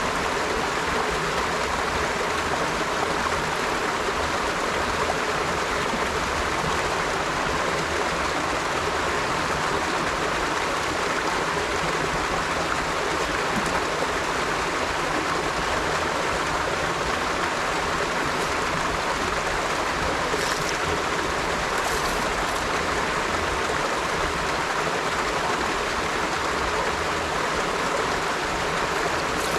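A river flowing steadily, an even rush of running water.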